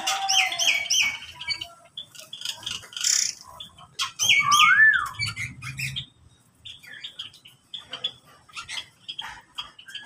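Mixed flock of caged songbirds calling in an aviary: clear falling whistles repeated in quick runs near the start and again about four seconds in, a rising-then-falling whistle just after, and scattered short chirps and squawks through the rest.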